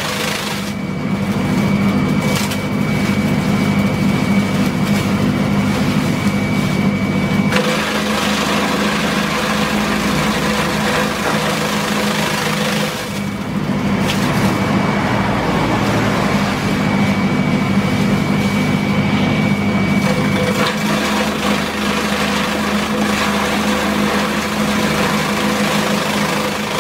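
Motor-driven banana-stem chopper running steadily with a hum and a thin high whine. Its blades shred stalks fed into the chute, giving two long stretches of loud chopping noise, one at the start and one in the middle, with the machine running on more quietly in between.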